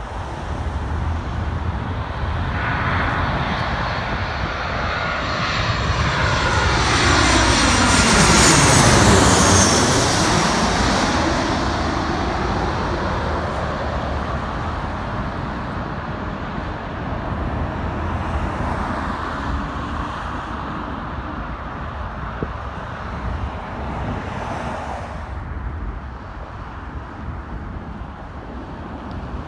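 Delta Boeing 737-800 jet airliner on short final approach passing close by, its CFM56 engines' roar swelling to a peak with a high whine about nine seconds in, then fading as it heads on toward the runway.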